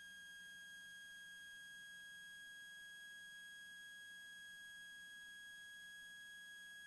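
Near silence: a faint, steady, high-pitched electrical tone with its overtones, unchanging throughout.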